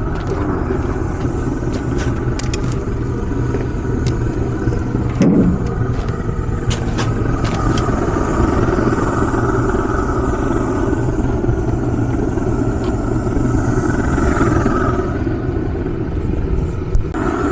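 An engine running steadily with a low, even rumble, and a short knock about five seconds in.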